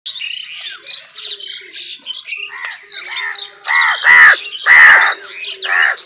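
A flock of house crows calling: a run of higher, short gliding squeaky calls, then several loud, harsh caws in the second half.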